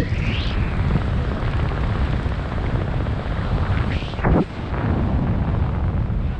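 Wind rushing over the microphone of a skydiver flying under an open parachute canopy: a steady low buffeting rumble, with a brief whoosh about four seconds in.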